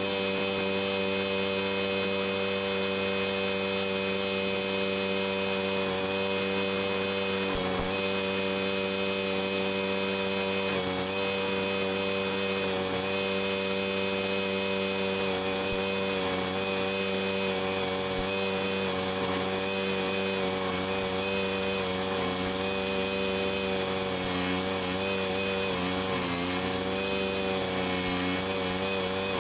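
Engine of a small track-driven Barreto stump grinder running steadily at high speed, its pitch sagging briefly a few times, most in the last few seconds, as the engine takes load.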